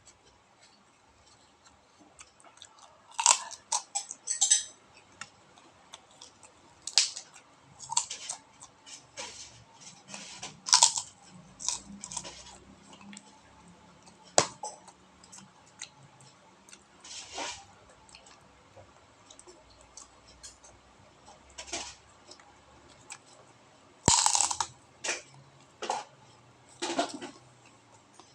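Close-up eating sounds: irregular crunching and crackling bites and chews, the loudest crunch about two-thirds of the way through, typical of biting into kerupuk crackers with a rice meal.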